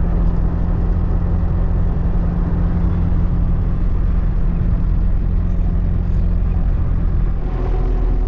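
Car engine running steadily at cruising speed with road and tyre noise, heard from inside the car as a loud, even low hum; the tone of the hum shifts slightly near the end.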